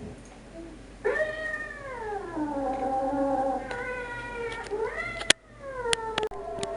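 A domestic cat meowing in long, drawn-out calls: a first call lasting almost two seconds that slides down in pitch, then another that rises and falls away. Several sharp clicks come in the second half.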